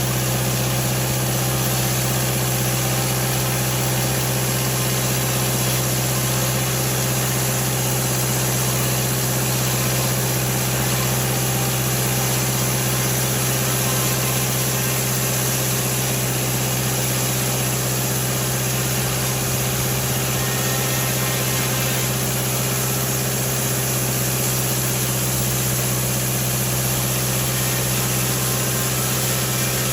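Damn Yankee sawmill's engine running steadily at a constant speed, with a strong, unchanging low hum.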